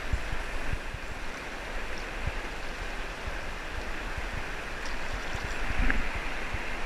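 Flowing creek water rushing steadily over a riffle, with occasional short low thumps.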